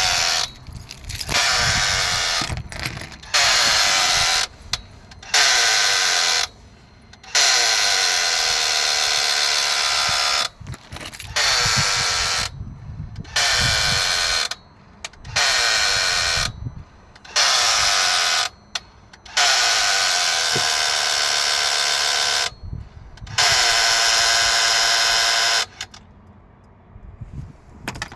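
An unidentified buzzing whir from a 2019 Peugeot Expert van that comes and goes in about a dozen bursts of one to three seconds, with short gaps between them. It stops a couple of seconds before the end.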